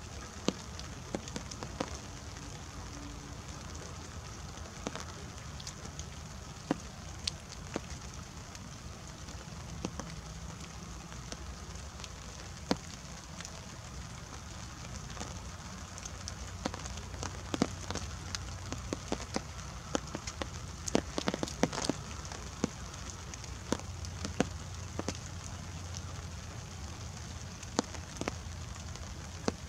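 Light rain: single drops tapping irregularly, coming thicker for several seconds past the middle, over a steady low rumble.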